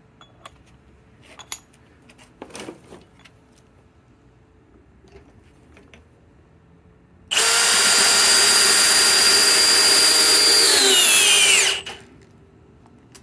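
Cordless drill driver in low gear (speed 1) driving a large lag screw with a 15/16 socket: a few handling clicks, then the motor runs for about four seconds and its whine drops in pitch as it bogs down under load before stopping, with the lag not fully seated.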